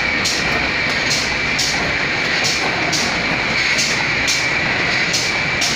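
Automatic liquid bottle filling and capping line running: conveyor and screw-capping machine with a steady high-pitched whine, and short sharp sounds recurring about every half second as bottles are capped.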